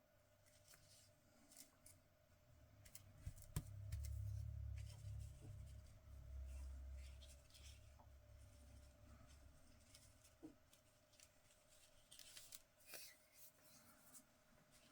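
Faint paper handling while crafting: light rustles and small clicks, with a low dull rumble for several seconds in the middle as something is pressed or moved on the work surface.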